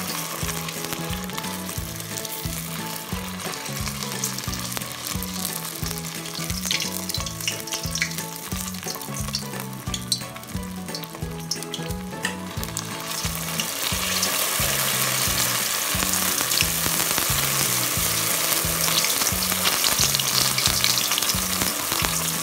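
Spring rolls deep-frying in hot oil in a pot, with a steady sizzle and a few pops. About 13 seconds in the sizzle grows clearly louder as fresh raw rolls go into the oil.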